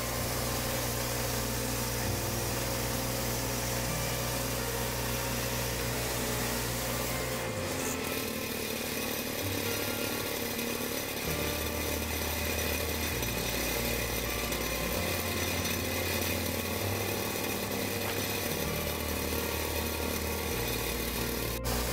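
Woodland Mills HM122 portable bandsaw mill cutting a pine log: the mill's gas engine runs steadily under load as the band blade saws through the log. The low hum shifts several times.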